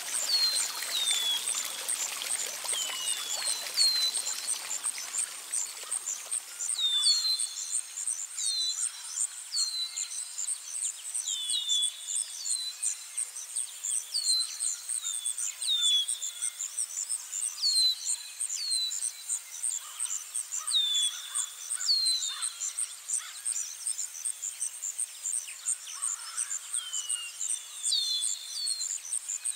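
Outdoor nature ambience: birds giving short downward-sliding chirps every second or two over a steady high, rapidly pulsing insect trill. A trickle of running water fades out over the first few seconds.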